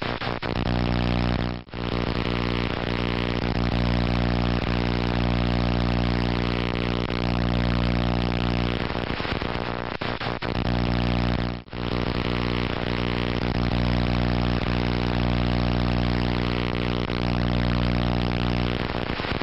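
A loud, steady droning hum built of many evenly spaced tones, unchanging in pitch, that cuts out briefly twice, about ten seconds apart.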